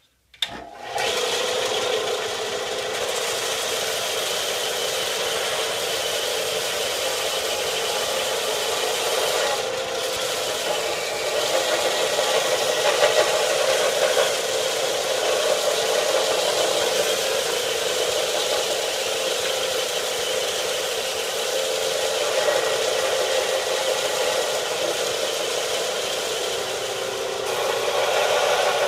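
Central Machinery belt-and-disc sander switched on about a second in, then running steadily while the edges of a Kydex sheath are pressed against the sanding belt: a motor whir with the rasp of plastic being ground down.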